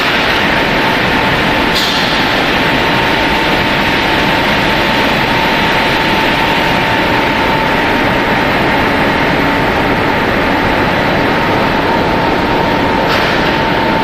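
Food processing plant machinery running: a loud, steady mechanical noise with a constant whine held on one pitch.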